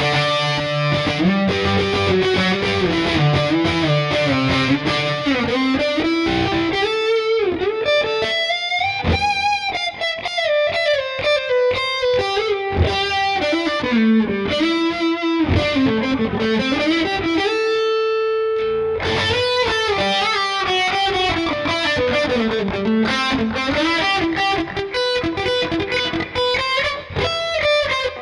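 Lavish CMRL-W electric guitar with Tesla pickups, played with a distorted tone: a melodic lead solo with string bends, vibrato and fast runs, and one long held note about two-thirds of the way through.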